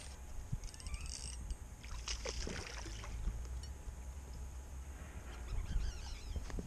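Steady low wind-and-boat noise with light water sounds around a small fishing boat, and a brief run of rapid fine ticking about a second in, from a spinning reel or its drag as a hooked smallmouth bass is fought on a light rod.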